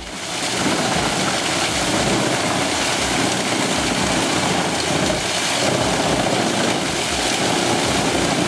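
Drum wood chipper running at full power: a loud, steady mix of engine and chipping noise.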